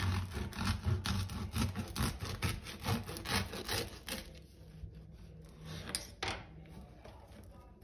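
A knife sawing through the crisp crust of a round whole-wheat loaf: rapid back-and-forth scraping strokes for about four seconds, then a few scattered strokes, the last one about six seconds in.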